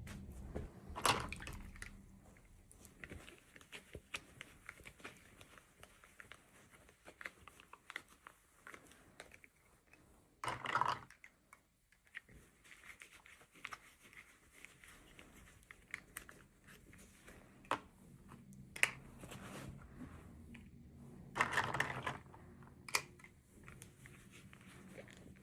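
Hands unboxing miniature toys: scattered light clicks and taps of small plastic pieces, with short crinkling rustles of packaging about a second in, around eleven seconds in and around twenty-two seconds in.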